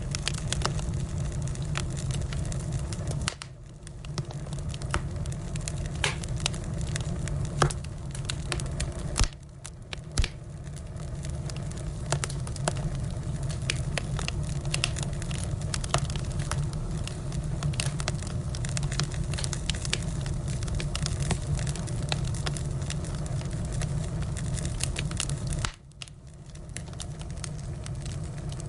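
Burning firewood crackling and popping over a steady low rush of flame, with irregular sharp snaps. The sound briefly drops away three times.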